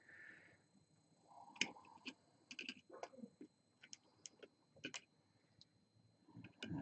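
Faint, irregular clicks and short scrapes of hand tools working around a plastic LiFePO4 battery case to pry it open.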